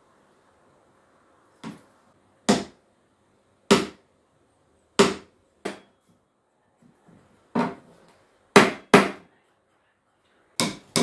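Hammer driving small nails through a thin wooden bar: about nine sharp taps at an uneven pace, some of them in quick pairs.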